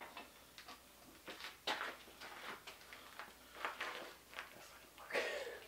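Faint, irregular clicks and taps of metal on metal as an engine block is pushed and pried to split its halves, with a slightly louder scrape or rustle about five seconds in.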